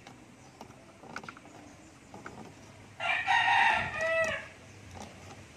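A rooster crows once, about three seconds in: one call of about a second and a half ending in falling notes. A few faint clicks come before it.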